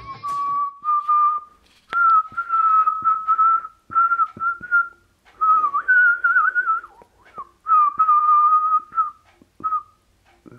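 A person whistling a slow tune in several long phrases, mostly holding close to one pitch with small slides, and a wavering stretch about halfway through.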